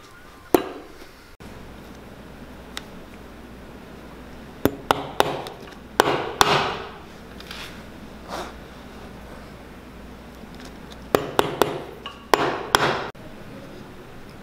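Cobbler's hammer driving iron nails into a leather boot sole: about a dozen sharp strikes in two clusters, several in quick succession, the louder ones with a short ring.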